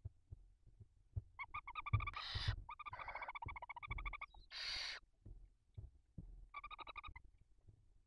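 Barn owls calling as an adult feeds its chicks. There are three bouts of rapid pulsing, trilling calls and two short hissing bursts, one about two seconds in and one near the middle, over soft thumps and scuffles of movement in the nest.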